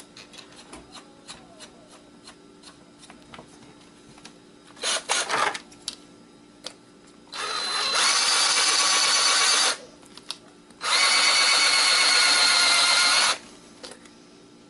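Power drill driving a screw extractor bit into a stripped screw. It runs twice with a steady motor whine, each run about two and a half seconds, after light clicks of tool handling and a brief burst a few seconds in.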